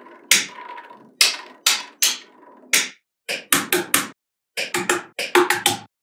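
Small magnetic balls clicking and clacking as strips of balls are pressed onto a wall of magnet-ball building: a few separate sharp clicks, then a quicker run of clicks in the second half.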